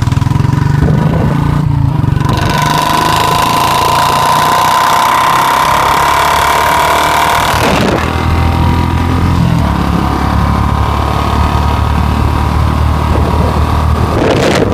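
Royal Enfield Bullet 350's single-cylinder four-stroke engine running steadily through its exhaust. Its note drops lower after a short break about eight seconds in.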